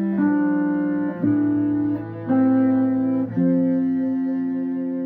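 Double bass and electric guitar playing together: long sustained notes, a new note or chord arriving about every second. The bass is bowed.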